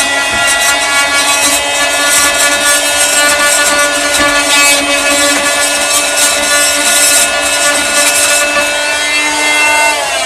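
Oscillating multi-tool running steadily with a high whine while its blade scrapes filler out of a screw head in wood, then switched off near the end, its pitch falling as it winds down.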